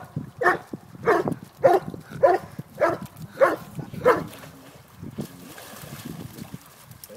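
A dog barking repeatedly, about seven barks a little over half a second apart, stopping about four seconds in. After that, faint splashing as a large dog heaves itself up in a shallow flooded puddle.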